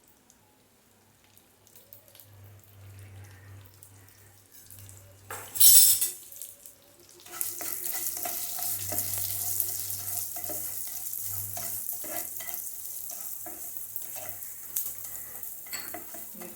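Coriander seeds roasting in hot oil in a pan: a brief loud clatter about six seconds in, then steady sizzling with a spoon stirring and scraping against the pan.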